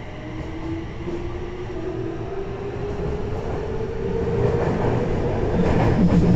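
Toei 6300 series subway train accelerating: the traction motors' inverter whine climbs steadily in pitch while the wheel and track rumble grows louder.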